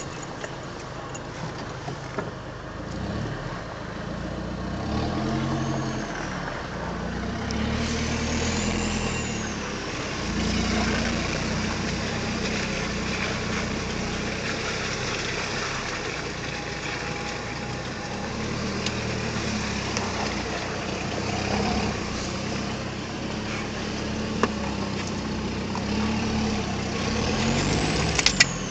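Off-road pickup's engine heard from inside the cab while crawling along a rutted mud track, the revs rising and falling again and again, with a few sharp knocks and rattles from the body.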